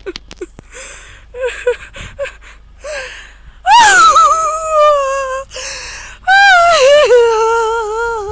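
A high-pitched voice crying: short whimpering sobs and gasping breaths, then two long, loud wailing cries that start high and fall in pitch.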